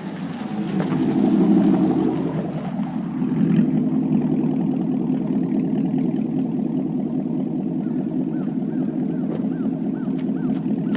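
2021 Chevrolet Camaro 2SS's V8 running through an MBRP cat-back exhaust, swelling louder about a second and a half in and again near three and a half seconds, then running steadily.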